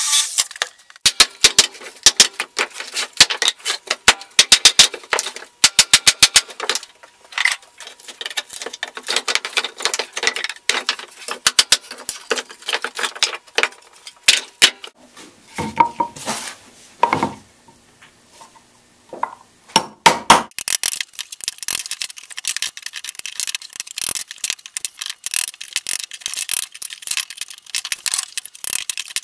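Wooden pallet being knocked apart: sharp hammer blows and boards and nailed blocks clattering, in quick runs of strikes. About two-thirds of the way through, after a short quieter stretch, a dense run of knocking and scraping sets in.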